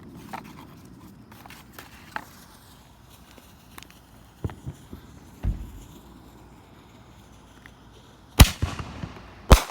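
A consumer firework mortar shell: a dull low thump about five and a half seconds in as it lifts from the tube, then two sharp, loud bangs about a second apart near the end as it bursts in the air.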